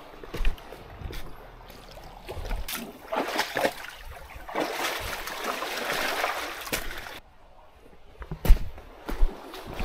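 Footsteps crunching and knocking on a pebble-and-rock shore, with a few seconds of splashing, rushing water in the middle that stops suddenly.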